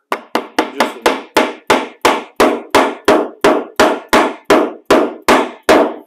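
A mallet tapping a caster's stem into the base of the upturned plastic drum of a Ridgid HD1640 shop vacuum. About twenty light, even taps come at roughly three a second, each ringing briefly.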